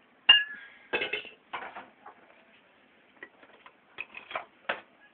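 Steel cooking pot being handled on a gas stove: a sharp, ringing metal clank about a third of a second in, then a run of knocks and clinks.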